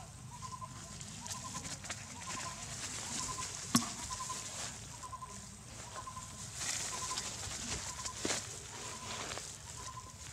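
A bird repeating a short pulsed call about once a second. A sharp click comes a little under four seconds in, and there are bursts of rustling in the second half.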